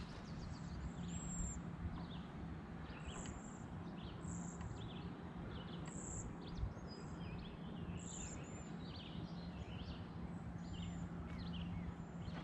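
Birds chirping and calling, with a high call repeated every second or two among many shorter chirps. Under them is a steady outdoor background with a low hum.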